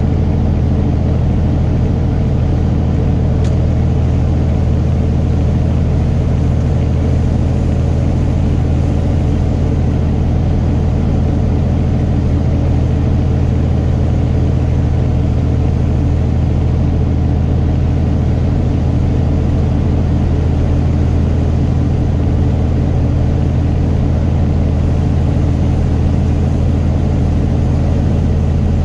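Steady engine and road noise of a vehicle driving at an even speed, a constant low drone with no changes.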